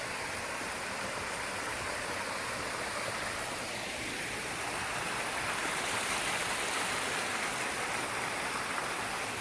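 Running water of a stream rushing steadily.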